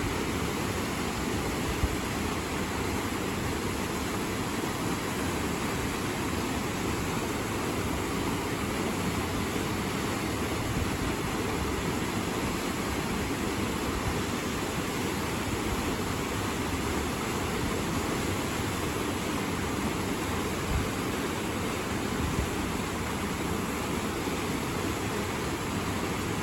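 Hoshioki Falls, a waterfall, pouring steadily: an unbroken, even rush of falling water.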